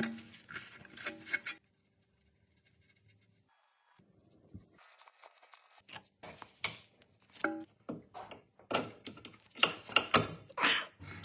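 Sharp metal clicks and knocks from hand tools working on a car's front-wheel suspension, with a gap of silence from about two to four seconds in and a quick run of louder knocks near the end.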